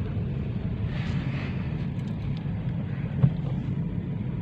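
Steady low rumble of road and engine noise inside a moving car's cabin, with one short click about three seconds in.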